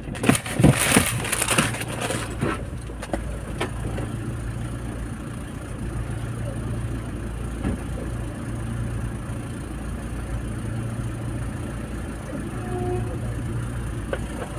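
Paper food wrapper crumpled and handled for the first few seconds, then a steady low hum.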